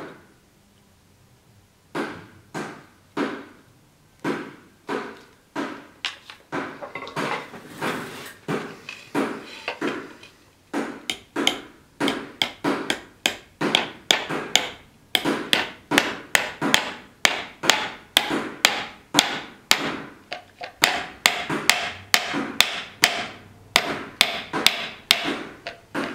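Small ball-peen hammer tapping again and again on the metal pins through a Bowie knife's wooden handle scales, peening them over to rivet the handle on. It is a steady run of light, sharp metal taps, about two to three a second, starting about two seconds in after a short pause.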